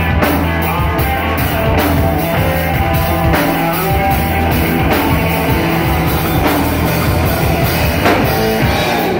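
Live rock band playing loud: electric guitar through a Marshall amp, electric bass and a drum kit with steady drum hits.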